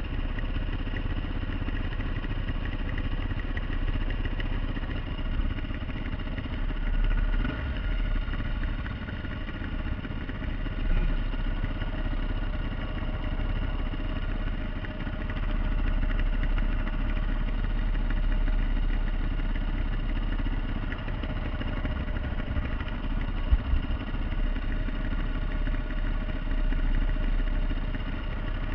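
Dirt bike engine idling steadily, with a few mild swells in level but no hard revving.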